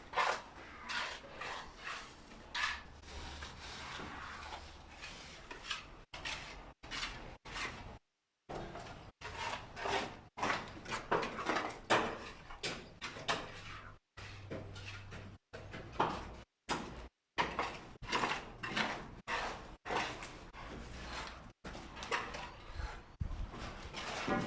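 Irregular scraping and knocking of hand plastering tools, steel trowel and hawk, working plaster, in many short strokes that are cut off abruptly several times.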